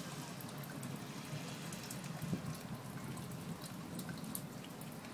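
Rain falling steadily, with scattered drips and drop impacts.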